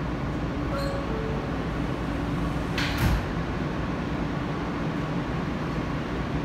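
R160 subway car's door-closing chime, two short descending tones about a second in, then the sliding doors shutting with a sharp thud about three seconds in, over the steady hum of the stopped car.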